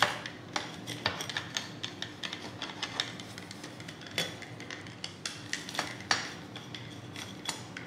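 Pizza wheel cutter rolling through a crisp-baked pizza crust on a cast iron pizza pan: a run of irregular crunchy clicks and scrapes as the crust cracks and the blade meets the pan.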